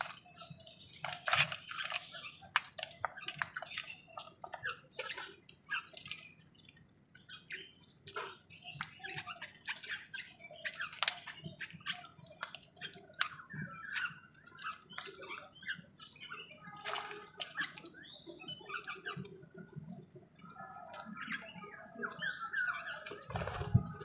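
House crows pecking at grain in a plastic bowl and on concrete: a steady scatter of quick taps and clicks, with occasional short bird calls that come more often near the end.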